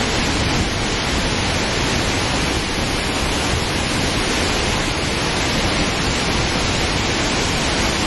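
Large waterfall and river rapids: the loud, steady rush of falling water.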